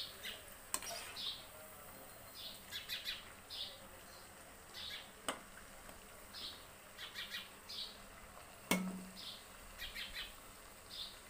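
A small bird chirping again and again in short high chirps, about one every half second to a second, over the faint hiss of murukku deep-frying in oil. A few sharp clicks cut in, the loudest near the end.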